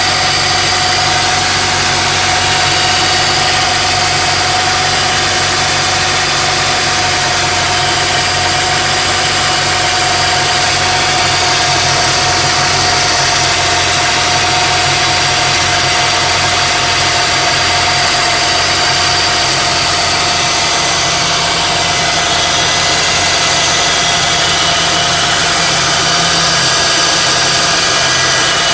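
Honda Civic Si (EP3) engine idling steadily, with a constant whining tone over the idle from a bad water pump pulley.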